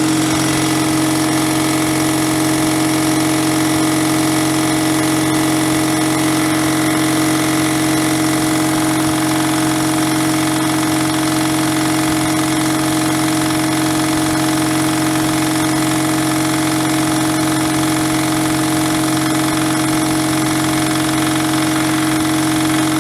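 Champion 3V60E1 3 hp belt-driven air compressor running steadily on its single-phase 220 V motor, pumping up tank pressure with a constant pitched hum. No air leaks can be heard.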